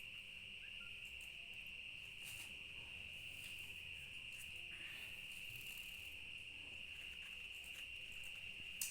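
Steady, faint, high-pitched chirring of insects, unbroken throughout, with a single sharp click near the end.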